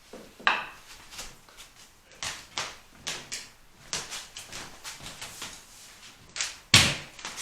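Rustling and scuffing of a patient shifting on a padded chiropractic table: a string of short rubbing sounds, then one sharp, loud knock near the end.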